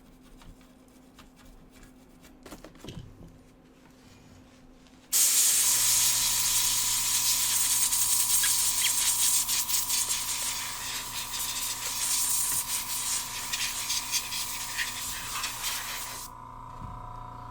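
Pressurised flux-remover cleaner spraying onto a circuit board: a loud, even hiss that starts suddenly about five seconds in and cuts off about eleven seconds later, as the container runs out and needs reloading.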